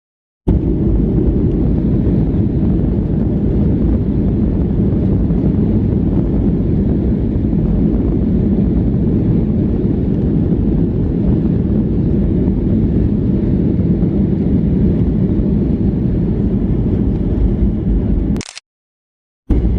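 Steady, loud low rumble of a Boeing 737-800's engines and airflow heard inside the passenger cabin. The sound drops out to silence for about a second near the end.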